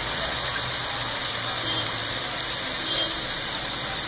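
Beef and whole spices frying in an aluminium pot on a gas stove: a steady sizzling hiss with a low hum underneath.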